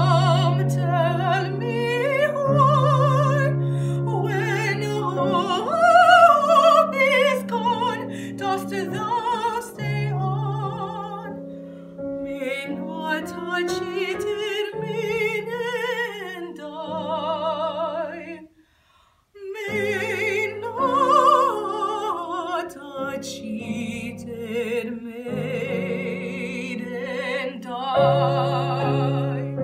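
Mezzo-soprano singing an operatic aria with wide vibrato, accompanied by a Kawai digital piano. About two-thirds of the way through, both stop for a brief pause, then the singing resumes.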